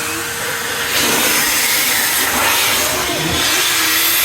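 Numatic Henry canister vacuum cleaners running, a steady motor whine under the rushing hiss of the airflow. About a second in, the rushing hiss gets louder and stays up.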